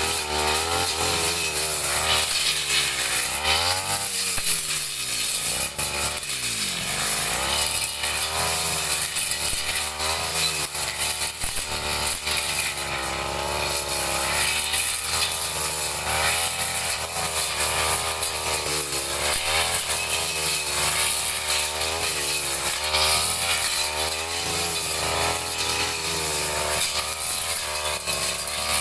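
Two-stroke brush cutter engine running at high revs, its pitch rising and falling as it cuts through grass and undergrowth.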